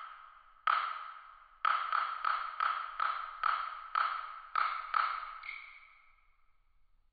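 Chinese opera percussion: about a dozen sharp, ringing strikes of one pitch. They come about a second apart, quicken to roughly three a second, then space out and fade away near the end.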